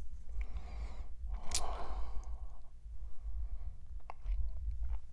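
A breath out, then a few light clicks and taps as the boxed action figure is handled, over a steady low hum.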